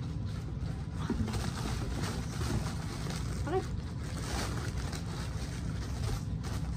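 White wrapping paper from a shoe box rustling and crinkling as it is handled, in a continuous run of small crackles.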